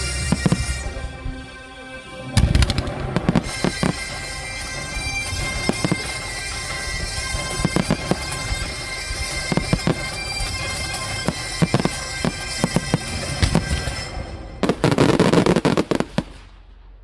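Fireworks bursting in a rapid run of sharp bangs and crackles, with a dense loud burst of crackling about fifteen seconds in, over music with long held notes. Everything fades out at the very end.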